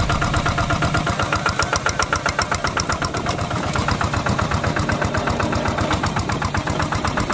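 Kubota RT140 Plus hand tractor's single-cylinder diesel engine running steadily with an even, rapid chugging beat while it works the paddy mud.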